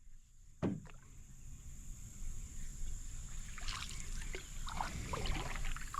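A single knock about half a second in, then scattered light clicks and rustles from people and gear moving about in a canoe on the water.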